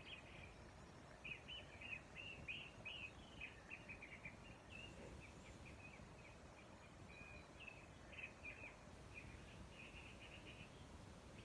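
Faint birdsong: a small bird singing quick chirping phrases almost without pause, over a low steady background hiss.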